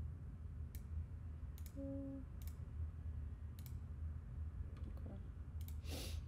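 A few separate clicks of a computer mouse or trackpad, spread unevenly, over a steady low hum. A brief low tone sounds about two seconds in.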